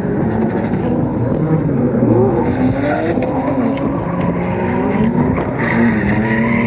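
Drift cars' engines revving hard, the pitch rising and falling, with more than one engine heard at a time.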